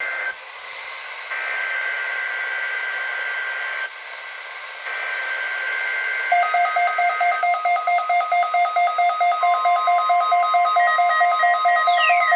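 Electronic alert tones over a steady hiss. Two steady high tones sound, break off twice, then give way about six seconds in to a rapid pulsing beep of several tones. A steady tone joins the beeping near the end, and falling, siren-like sweeps start just before the end.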